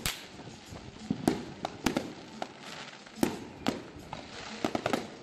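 Fireworks going off: sharp bangs at irregular intervals, with a quicker run of cracks near the end.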